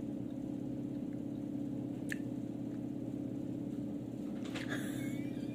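A steady low hum with a faint click about two seconds in and a short breath or sniff near the end.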